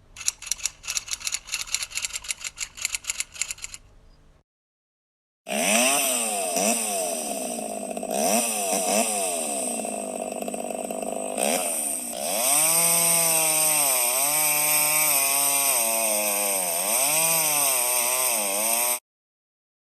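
A rapid run of clicks for about four seconds. Then, after a short gap, a small motor runs loud and is revved up and down again and again, its whine rising and falling, before it cuts off suddenly near the end.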